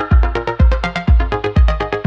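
Electronic dance music with a steady kick drum about twice a second under a synth melody.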